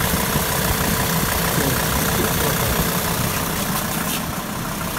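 SsangYong Rexton engine idling steadily and quietly, with no drive-belt squeal: the squeal has been silenced by a spray of silicone lubricant on the belt.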